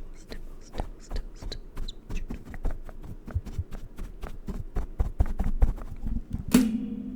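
Rapid, uneven tapping on makeup product containers close to the microphone, several taps a second. Near the end comes one louder knock that leaves a ringing tone hanging.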